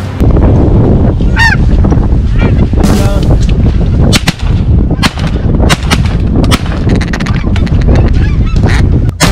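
Geese honking as they fly over, over a heavy low rumble of wind on the microphone, with several sharp cracks scattered through.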